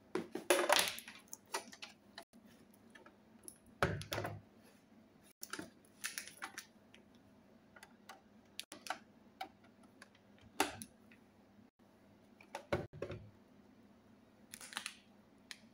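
Scattered clicks, knocks and rustles of hands handling a USB cable and plugging it into the rear USB port of an XPrinter XP-365B thermal receipt printer, with the printer's plastic case knocked and shifted on the table.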